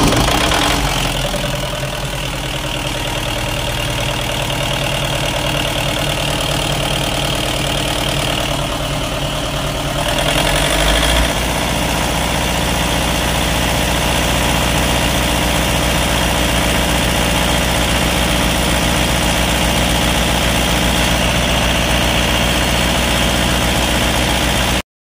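Generator set's engine running steadily after starting, with a brief shift in its note about ten seconds in. It cuts off suddenly near the end.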